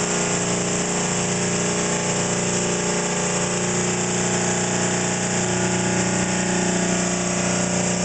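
Regenerative acceleration generator prototype with a commutator, running steadily at about 1,770 RPM with one coil driven as a motor. It makes a constant mechanical hum with several steady tones over a hiss.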